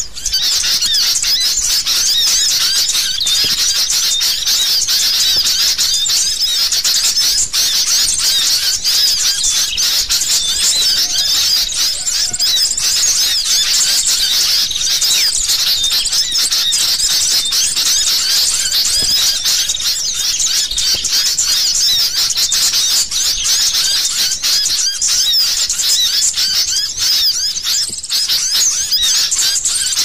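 Sooty-headed bulbuls (kutilang) calling in a noisy, agitated chorus of dense, overlapping high chirps without a break. It is a bird-trapping lure recording, meant to draw other birds in.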